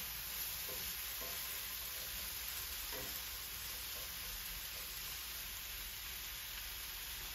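Diced zucchini sizzling steadily in hot olive oil in a cast iron skillet, with a wooden spatula stirring through the pieces and scraping lightly a few times.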